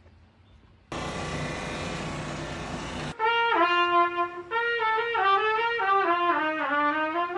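A steady hiss for about two seconds, then a solo trumpet from about three seconds in, playing a slurred melody with sliding, bent notes.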